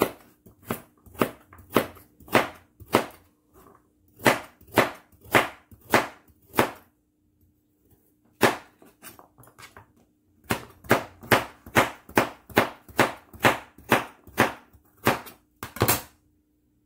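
Kitchen knife slicing a carrot into rounds on a plastic cutting board: sharp knocks of the blade hitting the board, about two a second, in runs with a pause of a few seconds about halfway through.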